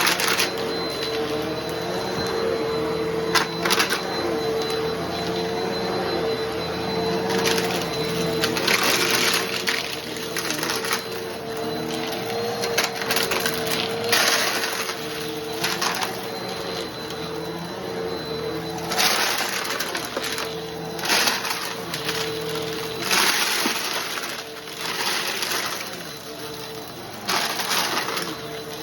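Bissell PowerForce Helix Turbo Rewind Pet vacuum running with a steady motor whine, while crunchy debris crackles and rattles through it in irregular bursts that come more often in the second half.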